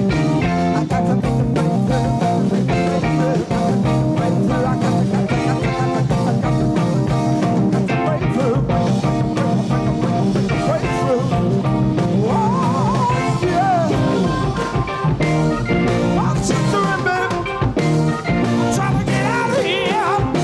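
Early-1970s hard rock band playing an instrumental passage: a wavering, bending lead line over held chords, bass and drums.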